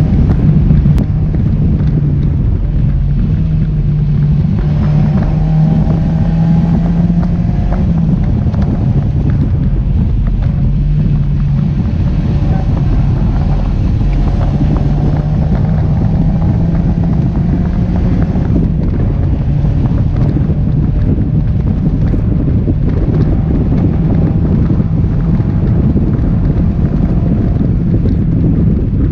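Mazda MX-5 NC's four-cylinder engine pulling hard at track speed, its note climbing in several long stretches, under heavy wind buffeting on the microphone in the open-top cockpit.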